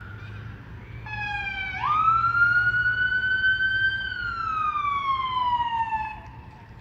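Emergency vehicle siren sounding one slow wail: it starts about a second in, jumps up sharply, climbs slowly, then falls away and stops about six seconds in.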